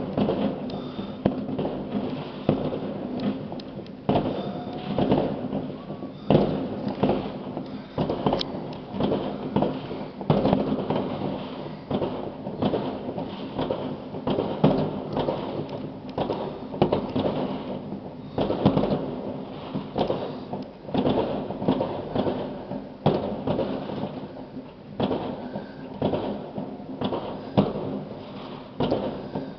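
Many fireworks and firecrackers going off across a city: a continuous, irregular stream of overlapping bangs and booms of varying loudness, with no pause.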